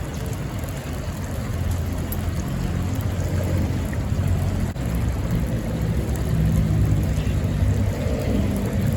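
A steady low rumble with a faint hum, swelling a little past the middle.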